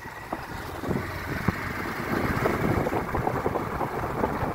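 Motorcycle riding along an unpaved road: engine running under steady wind and road rumble, with many small irregular knocks and rattles, getting louder about halfway through.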